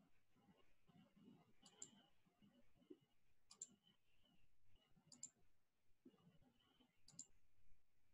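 Faint computer mouse clicks over quiet room tone, each a quick press-and-release double click, four of them about every one and a half to two seconds.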